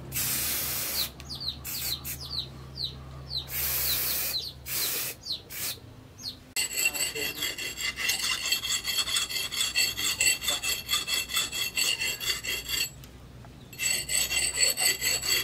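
An aerosol spray can hissing in several short bursts. About six seconds in, it gives way to the edge of a hand-forged double-bit axe being rubbed along a sharpening stone in quick, even rasping strokes, which stop briefly near the end and then resume.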